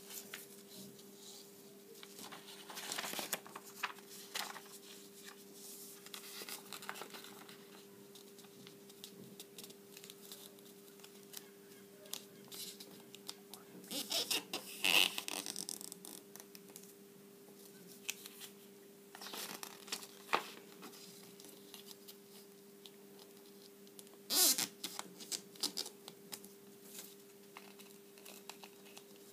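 Origami paper being folded and creased by hand: crinkling and rustling in short spells as folds are pressed flat, the loudest about midway and near the end, over a faint steady hum.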